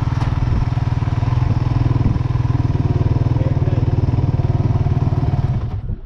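Kawasaki KFX 450R ATV's single-cylinder four-stroke engine idling steadily with an even, fast pulse. It stops abruptly near the end.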